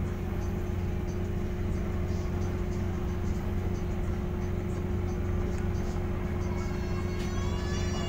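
Passenger ferry's engines droning steadily, a low hum with a fixed tone over it as the ship gets under way. Near the end a brief high-pitched sound with a slightly falling pitch rises over the drone.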